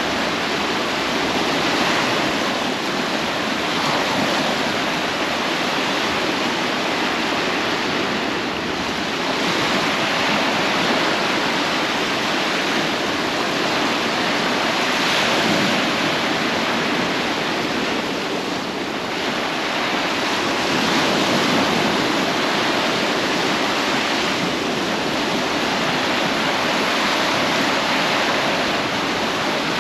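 Sea surf washing onto a beach: a steady rushing that swells and eases every few seconds as waves break.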